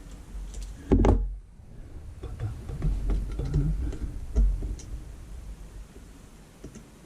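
Handling noises of small parts and tools on a workbench: one louder knock about a second in, then scattered light clicks and taps.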